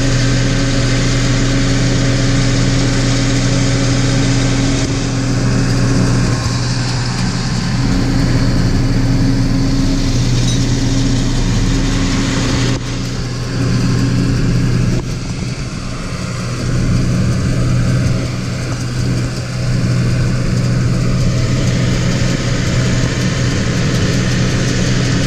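A pickup truck's engine idling steadily, an even low hum heard from inside the cab.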